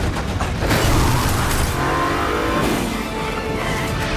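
A car engine revving hard through a chase, its pitch rising and falling, with a music score underneath.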